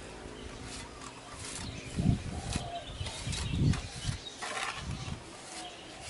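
Small steel trowel scraping and pressing wet cement onto wire mesh, with a few soft thuds and short scrapes.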